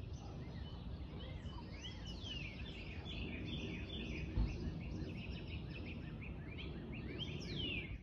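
Small songbirds chirping over a steady low background rumble: many short, overlapping chirps, with a few calls that slide downward in pitch. A brief low thump comes about halfway through.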